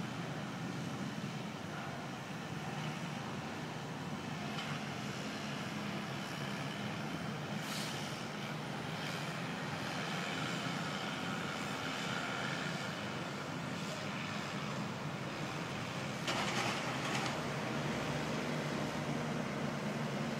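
Engines of a flatbed truck and a small forklift running steadily, a continuous low hum over a broad wash of city noise, with two brief hisses about a third of the way in and near the end.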